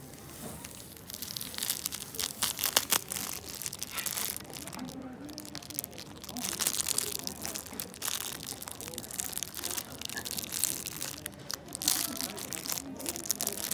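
Plastic cling wrap crinkling and crackling irregularly as it is peeled off a wrapped sweet by hand.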